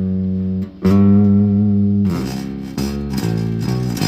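Electric bass guitar played with a pick on its bridge humbucker, through a Peavey Bandit guitar amp: a held low note, a second note struck about a second in and held, then a few shorter notes at changing pitch.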